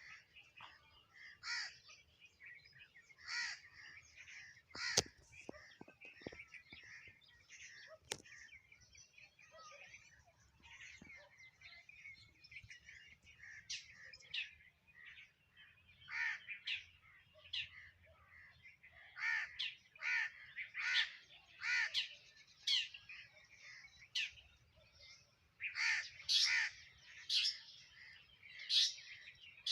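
Sparrows chirping over and over in short, quick calls, growing busier in the second half, with a couple of sharp clicks about five and eight seconds in.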